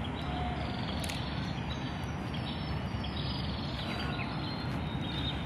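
Outdoor ambience: a steady low background noise with a few faint, short high chirps over it.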